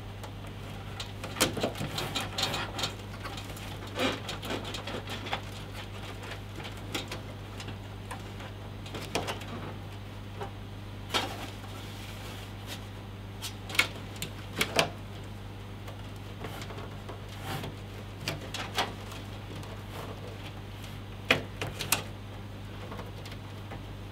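Scattered clicks, taps and rustles of cables and plastic connectors being handled, routed and pushed into place inside a PC case, with a few sharper knocks, over a steady low hum.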